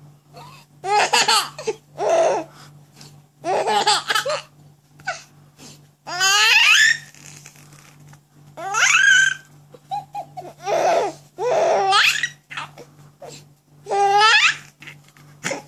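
A baby laughing in repeated bursts, every second or two, some of them high squealing giggles that slide up and down in pitch.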